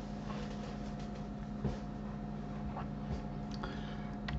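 Steady electrical hum of the recording setup, with a few faint computer-mouse clicks: one about a second and a half in, one around three seconds, and one just before the end.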